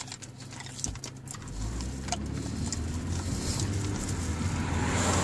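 Car engine and road noise heard from inside the cabin, a low rumble that builds from about a second and a half in as the car gets under way. A few faint clicks come before it.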